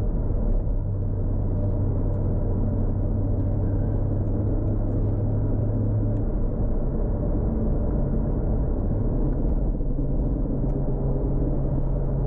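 Tuned Toyota Supra Mk4's 2JZ straight-six engine running steadily while driving, its note stepping up in pitch about halfway through.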